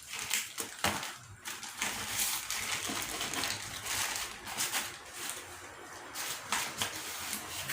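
A plastic courier parcel being torn open and its packaging handled, a run of irregular crackles and rustles.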